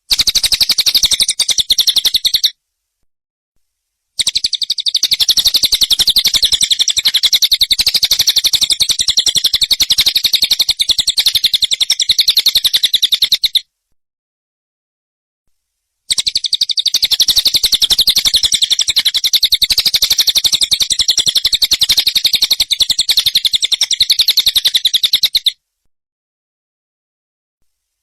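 Songbird training recording of a harsh, very rapid rattling trill with the notes packed tightly together. It plays in runs of up to about nine seconds that cut off abruptly into dead silence, then start again.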